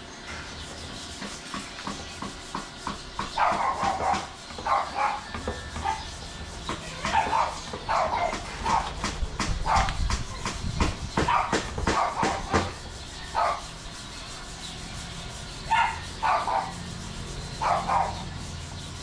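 A dog barking in short, irregular bursts, with a quick run of sharp knocks in the middle.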